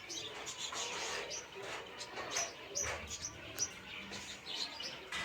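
A green parrot chattering with quick, irregular squeaky chirps and clicks.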